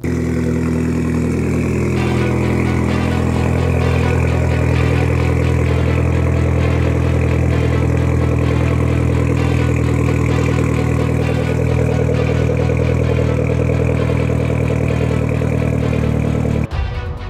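Mitsubishi 4B11 2.0-litre inline-four idling steadily through an aftermarket exhaust with a large single muffler tip. This is part of a cold start. The sound cuts off abruptly near the end.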